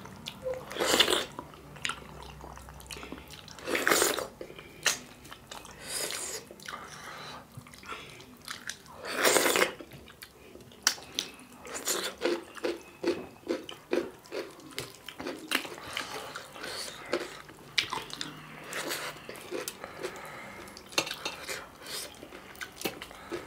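Close-up eating sounds: wet chewing and lip-smacking as two people eat millet dhido with spicy chicken curry by hand. In the first half there are a few longer, louder slurps from sucking gravy off the fingers; after that come many short, quick smacks.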